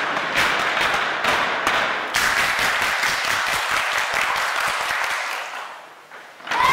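Clapping and applause from a crowd, with thuds of feet on a wooden gym floor; it dies away near the end.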